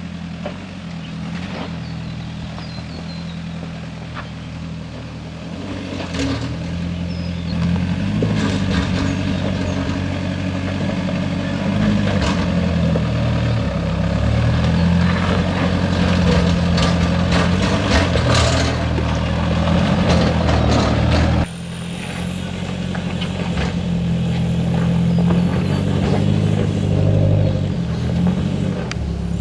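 Toyota Prado's engine pulling steadily under load on an off-road track, getting louder as it works, with scattered knocks and rattles. The sound drops suddenly about two-thirds of the way through, then builds again.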